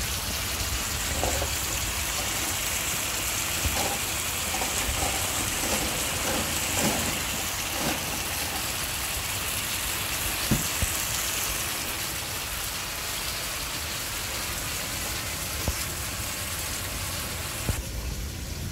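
Chicken and ginger sizzling in a wok with a steady hiss, with a few light taps and scrapes of a spatula and one sharper tap about ten seconds in. The hiss drops off near the end.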